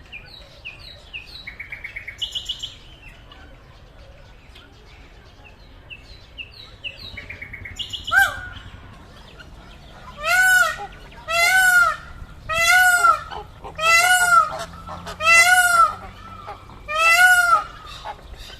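Peacock giving a series of six loud calls from about ten seconds in, each under a second long and arching up then down in pitch. Before them come fainter chirps and two quick rattling bursts of notes.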